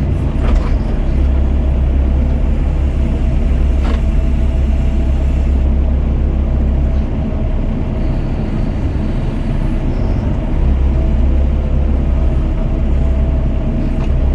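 Doosan DX55 mini excavator's diesel engine running under hydraulic load while it works its bucket, a steady low drone that eases about seven seconds in and picks up again a few seconds later. A couple of brief knocks sound over it.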